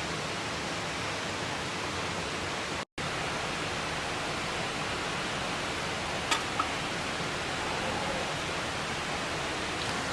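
Steady rushing of a mountain stream. The sound drops out for an instant about three seconds in, and two sharp clicks come a little after six seconds.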